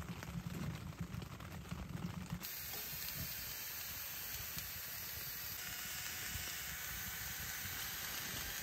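Salmon fillets, lemon slices and sweetcorn simmering in a cast-iron Dutch oven on a stove, giving a steady sizzling hiss. For the first two and a half seconds a low rumble is heard instead, which stops abruptly as the sizzling begins.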